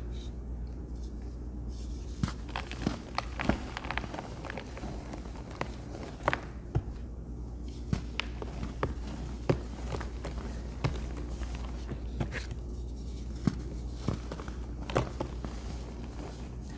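Hands crushing and squeezing a moulded block of pressed powder, giving irregular crisp crunches and crackles as it crumbles, starting about two seconds in.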